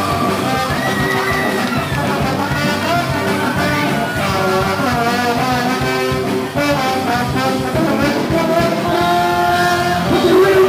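Live rock band playing, with a trombone carrying a melody over electric guitars and drums.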